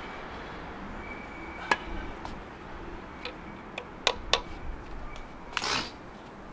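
Hands handling tools and parts around an open engine bay: one sharp click a little under two seconds in, a quick pair of clicks about four seconds in, a few lighter ticks, then a short rustle near the end.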